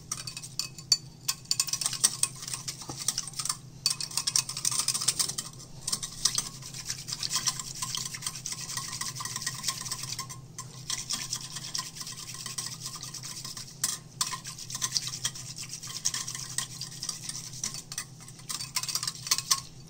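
Wire whisk beating curd in a glass bowl: rapid, steady scraping and ticking of the wires against the glass, stopping briefly a few times. The curd is being whisked smooth so the sugar in it dissolves.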